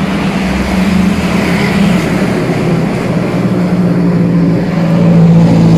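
Street traffic: a motor vehicle engine running close by, a steady low hum over road noise.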